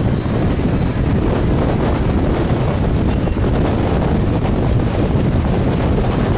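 Steady wind buffeting the microphone on the open deck of a fast-moving tour boat, mixed with the boat's running engine and rushing water.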